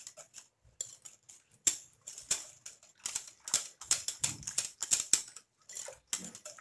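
Wire whisk beating a thin besan and yogurt batter in a glass bowl, its wires clicking and tapping against the glass in quick, irregular strokes, with a brief pause about half a second in.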